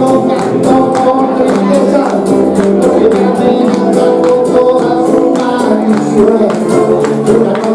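Music with sustained pitched notes over a steady percussion beat.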